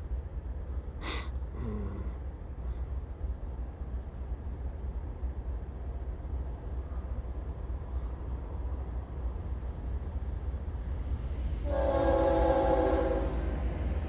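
Florida East Coast freight train with a steady low rumble, a single knock about a second in, and a short locomotive horn blast of several tones sounded together near the end. Crickets chirp steadily.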